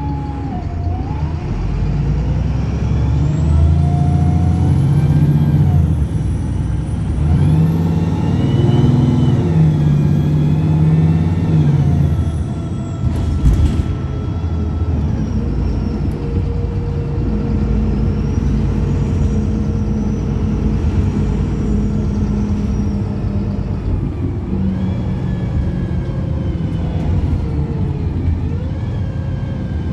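Optare Pulsar single-deck bus engine revving very high, an over-rev, from a few seconds in to about halfway, with a high whine rising and falling above the engine note. A sudden sharp sound follows, then the engine settles to steadier running and revs up again near the end.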